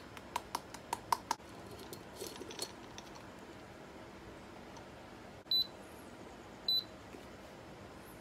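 A quick run of light clicks and knocks as coffee-making gear is handled. Then two short, high electronic beeps sound about a second apart, from the digital coffee scale's buttons.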